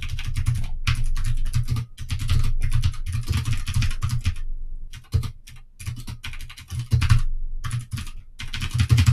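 Computer keyboard being typed on quickly, keystrokes clattering in runs with a short pause about halfway through and another near the end.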